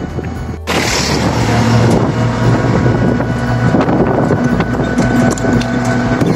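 Auto-rickshaw running along the road, heard from inside its open passenger compartment: a steady engine hum under road noise, with wind buffeting the microphone.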